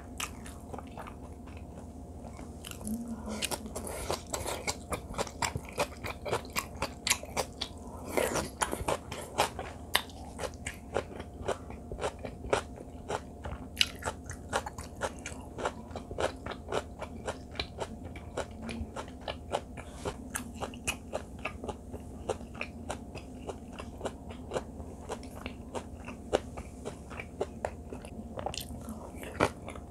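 A person chewing and crunching mouthfuls of seasoned vegetable namul and kimchi close to a clip-on microphone. It is a continuous run of wet crunches and clicks, thickest in the first half.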